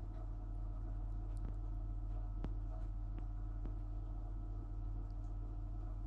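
Dishwasher running: a steady motor and pump hum, with a few faint ticks scattered through it.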